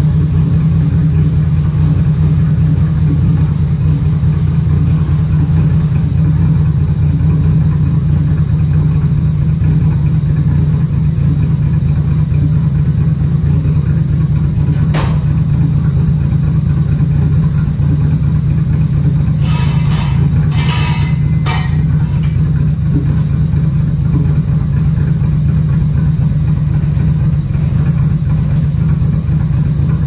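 Nissan Skyline R32's RB25 straight-six idling steadily through a 4-inch exhaust, running super rich with low compression.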